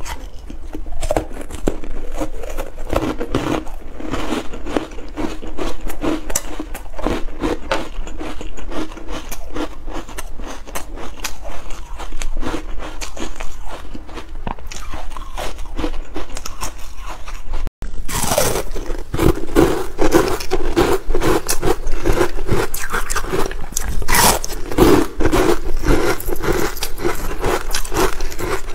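Close-miked biting and crunching of ice coated in matcha powder, a dense run of rapid cracks and crunches as the ice is chewed. It drops out for an instant about 18 seconds in, then carries on louder.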